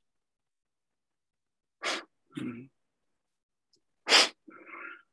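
A person sneezing twice, about two seconds apart, the second sneeze louder, each followed by a short breathy sound.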